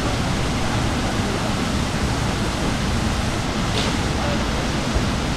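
Steady rush of a waterfall pouring into a rainforest pool, an even loud noise with no breaks.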